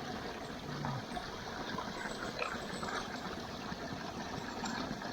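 Shallow running water trickling steadily.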